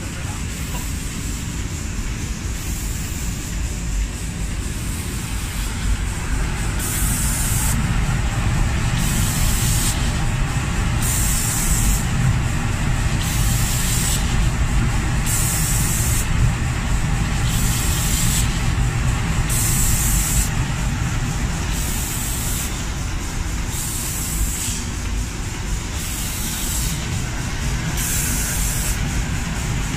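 Spray guns of an automatic cabinet-door spray-painting machine hissing on and off in regular spurts, about every two seconds, as they sweep across the panels, starting a few seconds in. A steady low machine rumble runs underneath.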